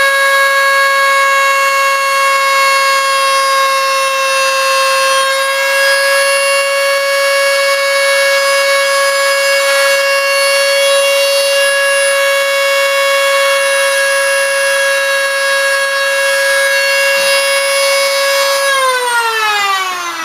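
Dremel rotary tool running at high speed with a steady high whine as it grinds stray epoxy out of a connector, then switched off near the end, its pitch falling as it spins down.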